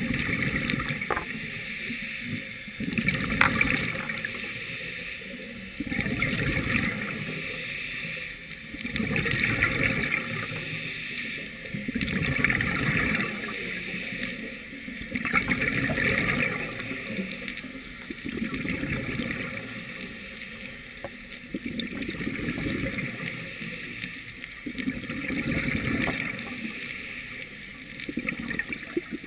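Scuba diver breathing underwater through a regulator: an inhaled hiss and a gurgling rush of exhaled bubbles, repeating about every three seconds.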